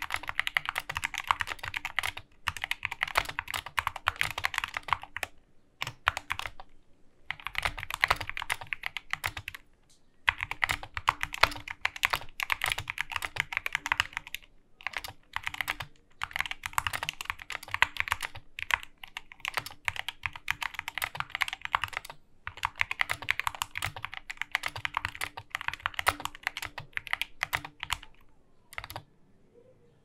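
Fast typing on an Epomaker SK64S mechanical keyboard with lubed Gateron Black linear switches: dense runs of key strikes broken by short pauses every few seconds, trailing off near the end.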